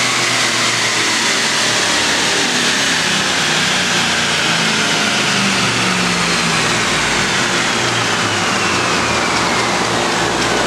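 2008 Ford Mustang GT's 4.6-litre V8 and drivetrain on a chassis dyno, spinning down after a pull. A whine falls slowly in pitch over a loud, steady rushing noise.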